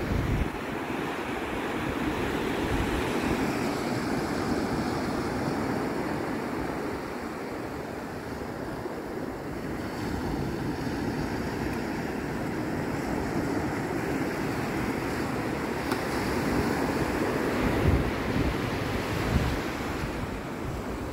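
Ocean surf breaking and washing up the sand in a steady rush, with wind buffeting the microphone in low rumbling gusts, strongest at the start and near the end.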